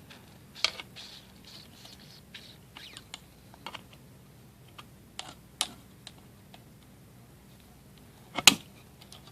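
Scattered small plastic clicks, creaks and scrapes from hands trying to pry open a fidget cube's plastic shell, with a couple of louder clicks near the end.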